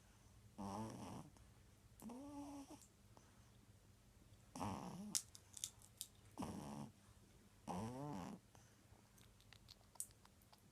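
Pug snoring in sleep: five short pitched snores, each about half a second long, with pauses between them.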